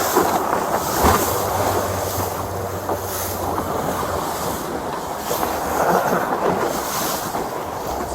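Motorboat engine running under way, a steady low hum beneath rushing water and wind buffeting the microphone.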